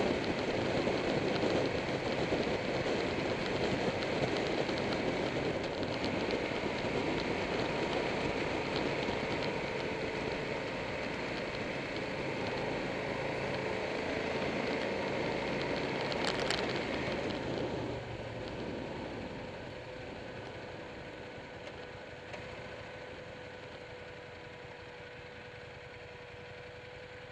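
Motorcycle engine running at speed under heavy wind and road noise, with a brief sharp click partway through. About two-thirds of the way in the noise drops and settles into a quieter, steady engine hum as the bike slows.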